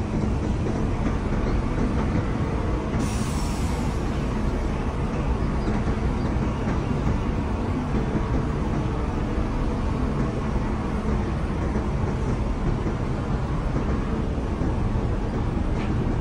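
Grove TM1500 truck crane's diesel engine running steadily, with a short hiss about three seconds in.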